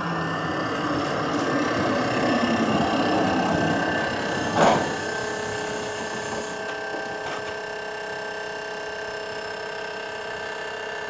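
Duewag MGT6D low-floor tram running, with rolling rumble and a steady motor whine. About four and a half seconds in there is one short, loud clack, after which the noise drops to a quieter steady hum.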